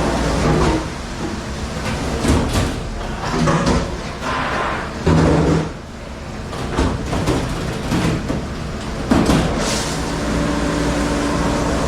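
A dishwasher running with a steady low hum, with irregular clattering knocks over it. The loudest knocks come about five seconds and nine seconds in.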